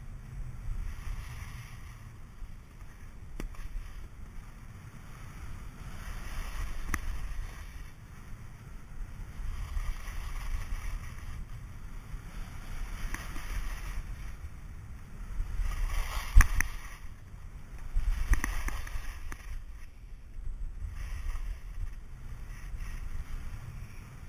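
Wind buffeting a helmet or body-mounted camera's microphone in a steady low rumble, with swells of hiss as ski or snowboard edges scrape across packed snow on each turn. A sharp knock comes about two-thirds of the way through.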